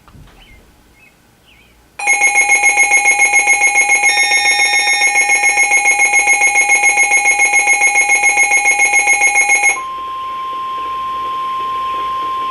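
Weather radio's loud electronic alert alarm pulsing rapidly, about six beeps a second, for about eight seconds. It then stops and gives way to the steady 1050 Hz NOAA Weather Radio warning alarm tone, which signals that a warning message follows.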